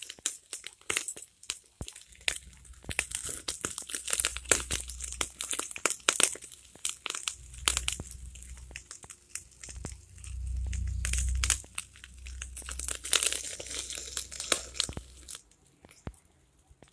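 Wood fire crackling under chicken pieces grilling on a wire mesh, with dense irregular pops and crackles and occasional scraping as the pieces are turned. A low rumble runs underneath through most of it, strongest a little past the middle.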